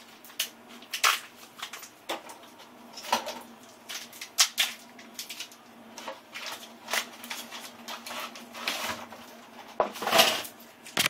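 Plastic sleeves of freezer ice pops crinkling and rustling as they are handled and rummaged through in a chest freezer, with irregular clicks and knocks and a louder rustle about ten seconds in.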